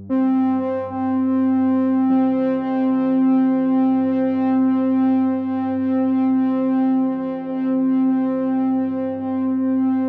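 Electronic background music: sustained synthesizer chords that come in suddenly and loudly, shifting to a new chord about two seconds in.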